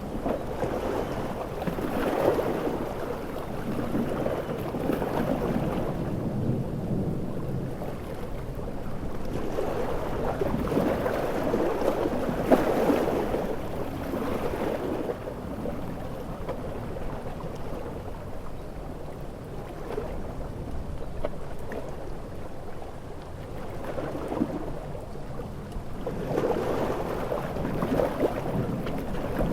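Storm soundscape of large ocean waves surging and falling back in swells every several seconds, mixed with heavy rain. The surges are strongest near the start, in the middle and near the end.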